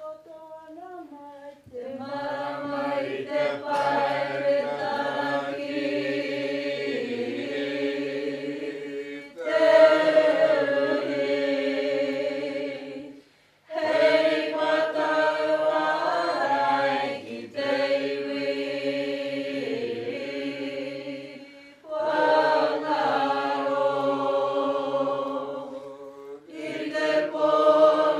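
A group of voices chanting a Māori mōteatea in unison, in long held, gliding phrases broken by short gaps about every four seconds. A single faint voice opens, and the full group comes in about two seconds in.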